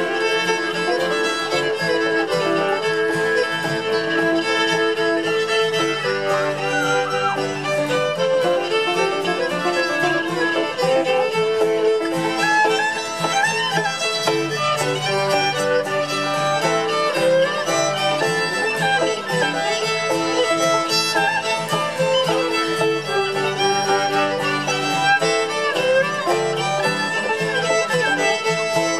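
Two fiddles playing an old-time fiddle tune together at a lively, steady pace, backed by strummed acoustic guitar.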